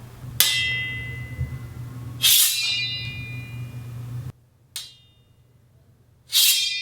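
A metal object struck four times, each strike a sharp hit that rings on with a high, fading metallic tone. The third strike is softer and shorter than the others. A low hum under the first two strikes cuts off suddenly about midway.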